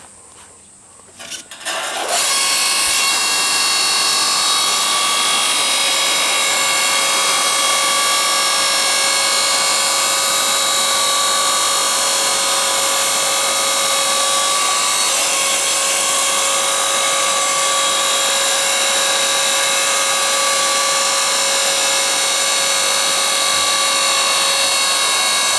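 Electric hydraulic log splitter running with no log in it: the motor and pump whine steadily with several constant tones while the ram slowly pushes the block toward the wedge. It starts about two seconds in and eases off near the end.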